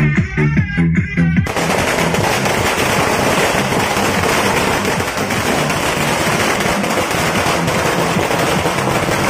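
Music with a steady beat, then, about a second and a half in, a long string of firecrackers starts going off in a rapid, continuous, loud crackle that drowns out the music.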